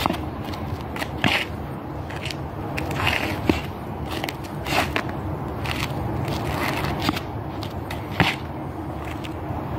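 Shoes scuffing, stepping and stamping on wet asphalt during a Bajiquan form. Several sharp stamps and scrapes stand out over a steady low background rumble.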